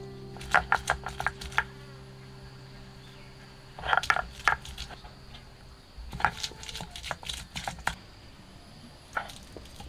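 Stone roller crushing garlic, ginger and chillies on a ridged stone grinding slab: clusters of sharp knocks and crunches about half a second in, around four seconds in, and from about six to eight seconds, with one more near the end.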